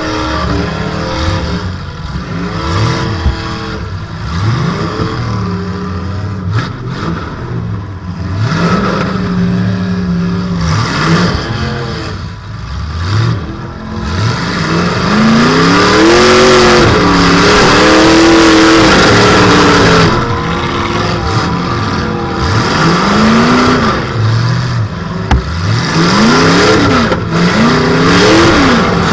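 Demolition derby car's engine revving hard and falling back again and again through open exhaust stacks, heard from inside the stripped cockpit, held at high revs and loudest for a few seconds past the middle. Several sharp metallic knocks from hits and the car body rattling come through the engine noise.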